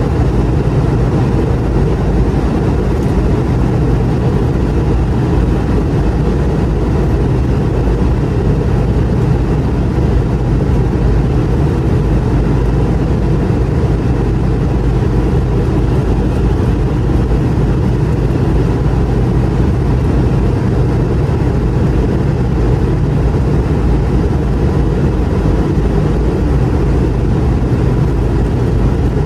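Cabin noise inside a McDonnell Douglas MD-88 as it climbs: the rear-mounted Pratt & Whitney JT8D turbofans run steadily with a low hum under a constant rush of air.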